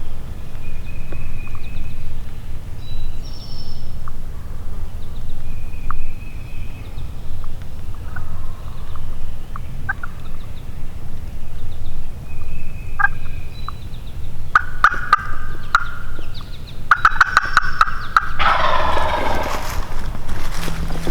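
Wild turkey gobbling: a few short, faint calls, then rapid rattling gobbles about two-thirds of the way in and a loud, full gobble near the end, over a steady low rumble.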